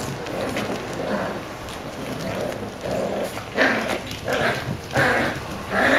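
Black and tan Jack Russell terrier puppies growling as they tug at a toy together, with a few louder yaps in the second half.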